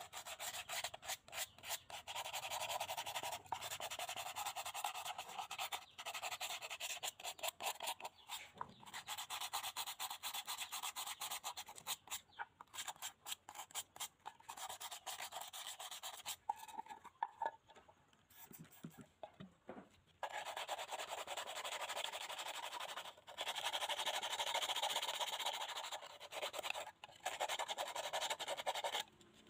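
Scouring sponge scrubbed fast back and forth over the rusty steel body of an antique stove to take off the rust: a rapid, scratchy rubbing in long stretches broken by short pauses.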